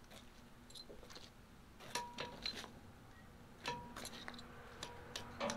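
Scattered light metallic clicks and clinks, a few ringing briefly, as a 1-inch drive breaker bar and socket are worked onto a semi truck's wheel lug nut.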